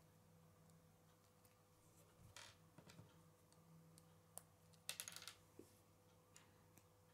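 Faint clicks and small rattles of K'nex plastic pieces being handled and snapped together, with a short cluster of clicks about five seconds in.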